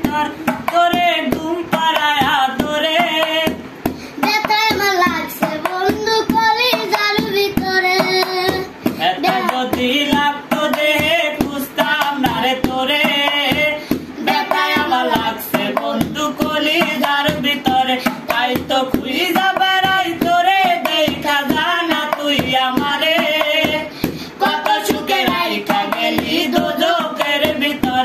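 A man singing a Bengali folk song, beating quick hand strokes on an upturned aluminium cooking pot played as a drum.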